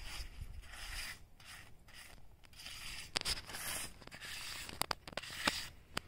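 Hand trowel scraping and packing wet concrete mix into the gap along a new concrete driveway slab's edge, in soft uneven scraping strokes with a few sharp taps in the second half.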